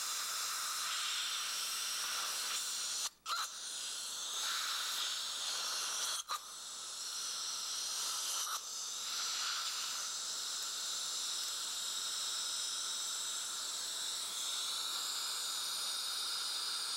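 Steady hiss of a dental air-water syringe spray, with a suction tip drawing the water out of the mouth, cutting out briefly twice, about three and six seconds in.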